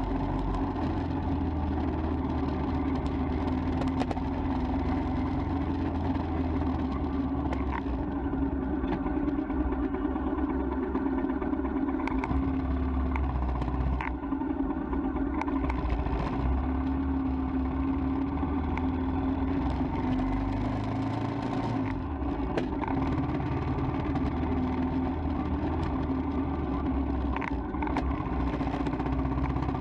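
Royal Enfield Himalayan's 411 cc single-cylinder engine running steadily at road speed, heard from the bike's riding camera, with a few brief clicks.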